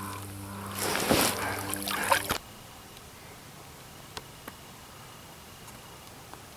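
Water splashing and sloshing as a Labrador retriever swims in with a retrieved duck. It cuts off abruptly about two seconds in, leaving a faint background with a couple of small ticks.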